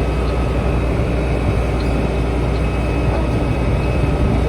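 A vehicle running: steady, continuous engine noise, strongest in the low range.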